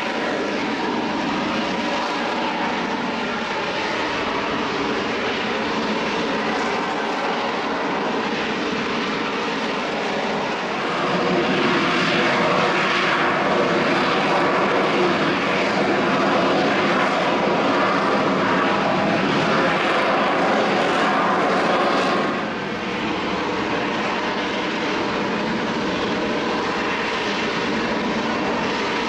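EAV-8B+ Harrier II jet's Rolls-Royce Pegasus vectored-thrust turbofan running at high power in slow, nose-high flight: a steady rush with a whine made of several held tones. It grows louder about a third of the way through and drops back again about three-quarters of the way through.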